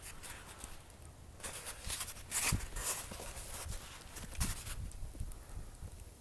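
Footsteps in snow, an irregular run of short scuffs about two a second.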